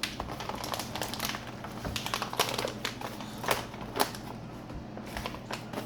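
Snack wrapper crinkling and crackling in the hands as a packet of wafer bites is opened, in a run of irregular sharp rustles.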